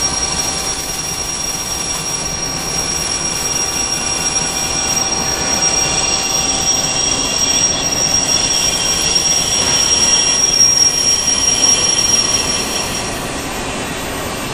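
Machinery running in a machine shop: a steady mechanical drone under a high-pitched whine that gets a little louder, then cuts off about 13 seconds in.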